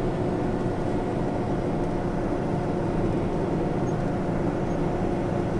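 Farm tractor running steadily, heard from inside its closed cab: an even drone with a steady hum.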